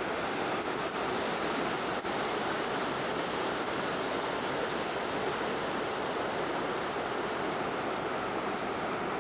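Steady rushing of a river in flood, the swollen Black Fork River running high and fast.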